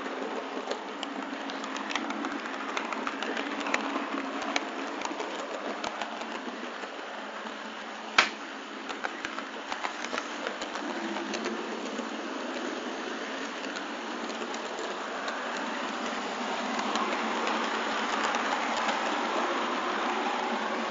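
OO-gauge model train running on the layout's track: a steady rolling rattle full of small clicks as the wheels pass rail joints and pointwork, with one sharp click about eight seconds in. The rolling noise grows louder near the end as another train's coaches pass close alongside.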